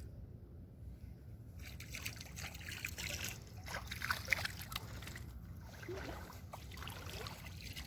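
River water sloshing and splashing in irregular bursts, starting about a second and a half in, as a released pike is let go and swims off.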